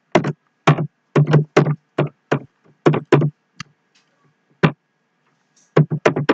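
Typing on a computer keyboard: quick, irregular keystrokes, each a short knocking tap with a dull thud under it. The run stops about three seconds in, a single click comes in the pause, and a fresh burst of keys starts near the end.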